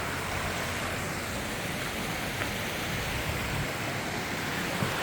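Creek water flowing, a steady even rush of water noise.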